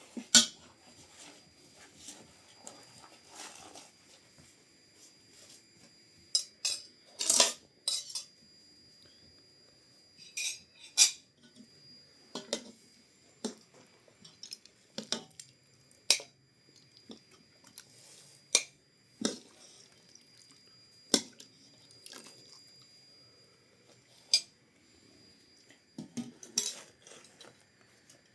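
Cutlery clinking and scraping against plates and dishes during a meal, in irregular separate clicks with short pauses between them.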